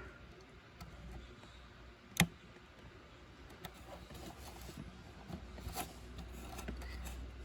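Light handling noises of a ribbon-cable connector being worked onto a circuit board's pin header, with one sharp click about two seconds in and a few fainter clicks later, over a low steady hum.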